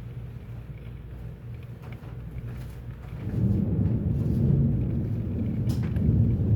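Low rumble of thunder that swells about halfway through and rolls on, with a brief sharp click near the end.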